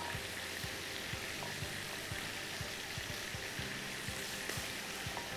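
Oil sizzling in a frying pan: a steady hiss with many small crackles.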